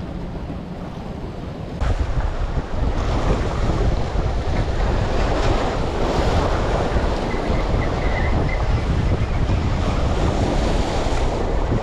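Waves breaking and washing over the boulders of a rock jetty, with wind buffeting the microphone; the wind rumble jumps up sharply about two seconds in and stays loud.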